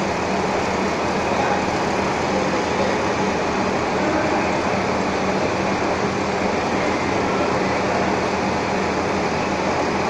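Steady machine-shop din from machine tools running, with a constant electric-motor hum underneath.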